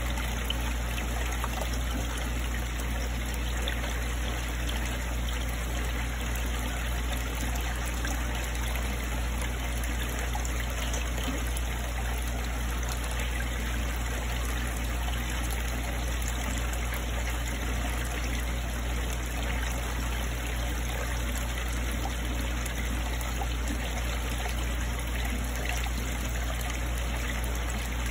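Steady trickle of water in a koi fry tank, running without a break over a constant low hum.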